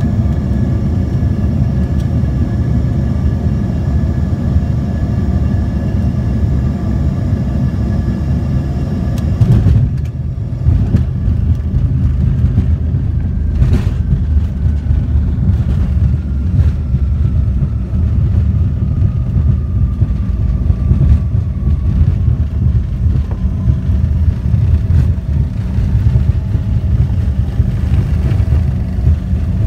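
Airliner cabin noise heard from a window seat over the wing: a steady jet-engine whine over a deep rumble. About ten seconds in the sound changes suddenly to a rougher, louder rumble as the plane rolls fast along the runway, and an engine whine then falls slowly in pitch as the engines wind down.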